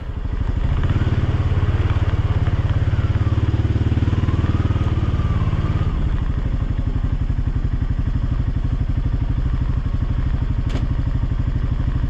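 ATV engine running as the quad is ridden, a steady rapid thrum. It comes in abruptly and is a little louder for the first six seconds or so.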